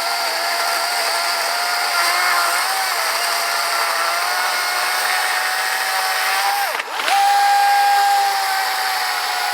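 DeWalt 60V battery chainsaw with a 16-inch bar running and cutting seasoned black locust: a steady electric motor whine with chain noise. About seven seconds in the whine briefly drops away and comes straight back a little higher, then eases down again as the chain takes the load.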